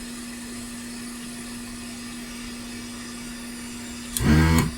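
Steady electrical hum and light hiss from the soldering rework bench. About four seconds in, a short loud buzzing burst as the vacuum desoldering gun's suction pump is triggered to pull molten leaded solder out of the through-holes.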